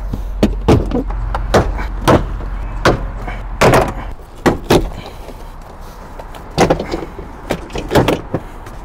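Plastic interior trim panel of a 2018 Subaru Impreza being pried and pulled off: a run of irregular sharp clicks and knocks as its clips pop loose and the panel rattles against the body, loudest a little under four seconds in.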